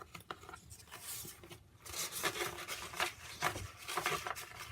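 Sheets of origami paper rustling and crinkling as they are handled and shuffled, with a few small taps in among the rustle.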